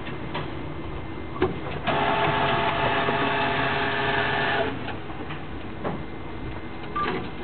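Cash machine's internal mechanism whirring steadily for about three seconds, starting about two seconds in, with a few sharp clicks before and after. The machine is processing a 10 euro withdrawal before handing back the card and the notes.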